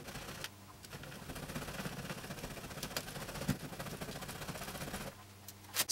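Cheese being grated on a stainless steel box grater: faint, quick scraping strokes that stop about five seconds in.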